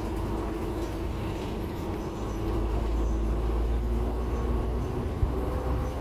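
City bus running, heard from inside the cabin: a steady low engine and road rumble as it drives through a turn, with a short knock about five seconds in.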